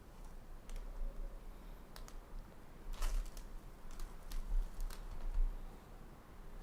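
Irregular light clicks and taps of trading cards being handled and set down on a table, about eight in all, most of them in the middle of the stretch.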